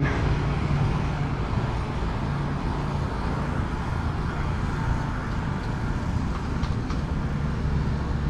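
A steady low engine rumble over a constant outdoor background noise.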